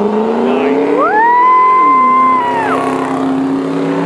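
Pickup truck engines at full throttle in a drag race, the engine note climbing steadily. About a second in, a high steady whine glides up, holds for over a second and glides back down.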